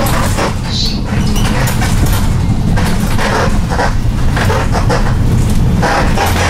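Cabin noise inside a Dietrich City 21 minibus built on a Fiat Ducato, moving at speed: a steady low rumble of engine and road, broken many times by short creaks and rattles from the bus's body and interior fittings as it jolts over a rough surface.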